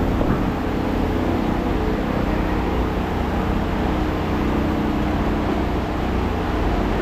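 An engine running steadily at idle, a low even drone with no change in speed.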